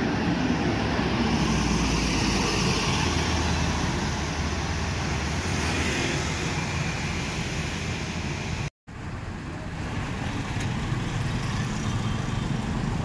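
Busy road traffic with buses and cars passing, a steady mix of engine rumble and tyre noise. The sound drops out for a moment about nine seconds in, then the traffic carries on.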